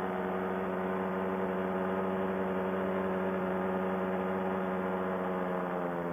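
Fresh Breeze Monster paramotor's two-stroke engine running steadily at flight power, its pitch easing slightly lower near the end. The pilot finds it running worse than before with the 160 carburetor jet back in.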